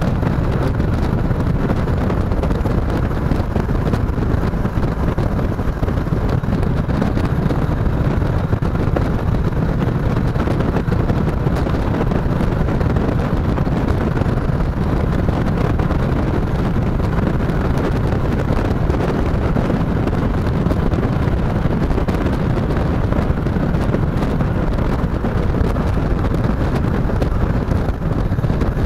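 Chopper-style motorcycle running at a steady cruising speed, with wind rushing over the microphone.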